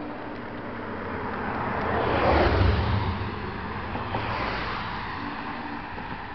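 Road traffic passing by: tyre and engine noise swelling to a peak about two and a half seconds in, then a second, smaller pass about four seconds in.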